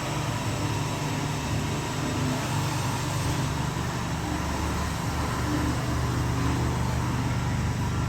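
A steady low mechanical drone with a faint high steady tone above it, from a running machine such as an engine or a ventilation fan.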